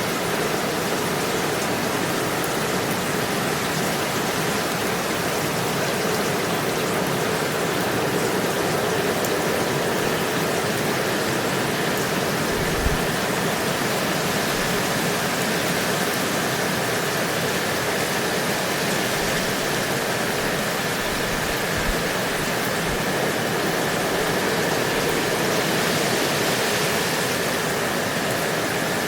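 Steady, unbroken rain hiss, even and constant throughout, with a couple of brief low thumps about 13 and 22 seconds in.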